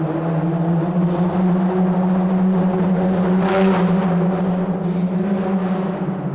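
A car driving through a tunnel: a steady, loud, low engine and road drone with a strong hum that swells and then eases off. A brief rush of hiss comes about three and a half seconds in.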